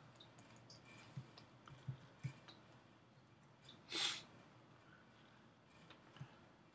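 Faint, scattered clicks and light taps from computer input devices as a digital painting is worked on. About four seconds in, one short breath through the nose, louder than the clicks.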